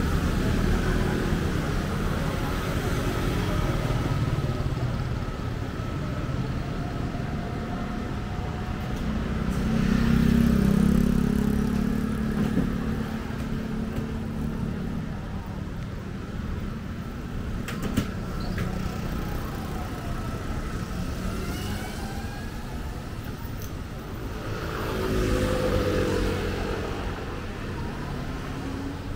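City road traffic: a steady rumble of passing motor vehicles, with one vehicle passing close about ten seconds in and another near the end. A single sharp click comes a little past halfway.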